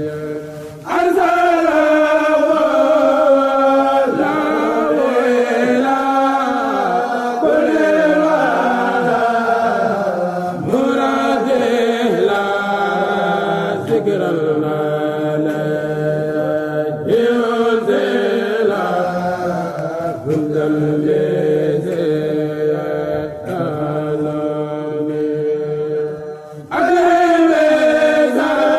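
Khassida chanting by a Mouride kourel: unaccompanied male voices singing long held notes with sliding melodic lines. The full sound comes in about a second in, and again near the end after a short dip.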